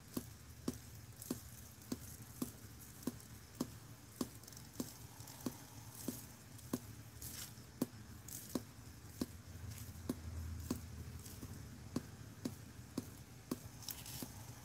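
Fine glitter being shaken from a plastic jar onto an epoxy-coated tumbler, with soft, even ticks a little under twice a second and a faint patter of glitter.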